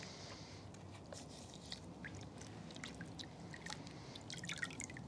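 Faint small splashes, drips and crackles of water as gloved hands handle a plant down in a plastic tub of soapy water, with a brief flurry of crackly ticks near the end.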